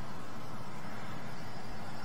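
Steady, even hiss with a low rumble underneath; no speech.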